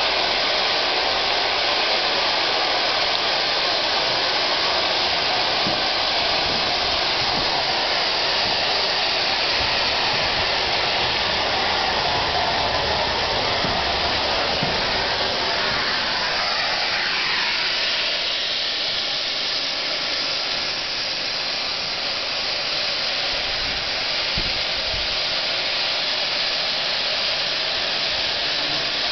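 SECR C Class 0-6-0 steam locomotive hissing steam steadily and loudly as it runs slowly round its train, easing a little about two-thirds of the way through. A few soft low thumps sound now and then.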